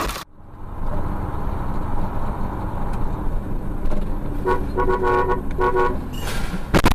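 Steady rumble of a car driving. About four and a half seconds in, a car horn honks in several quick short toots, followed near the end by a loud, noisy burst.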